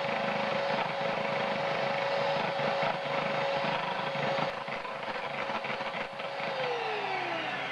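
Electric hand mixer whipping heavy cream in a glass bowl, its motor running at a steady whine with the beaters whirring through the cream. Near the end the motor winds down, its pitch falling.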